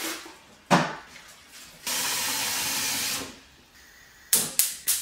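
A knock, then a steady hiss lasting about a second and a half that starts and stops abruptly. Near the end a gas hob's igniter clicks rapidly, about four clicks a second, as a burner is lit.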